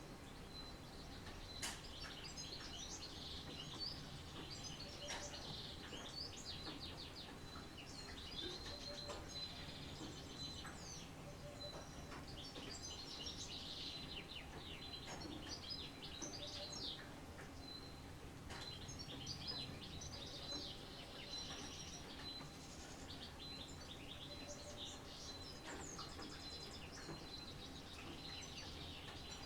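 Several songbirds singing and chirping together in a dawn-chorus-like mix of short trills and calls, over a faint steady background noise. A thin, steady high tone runs beneath the birdsong.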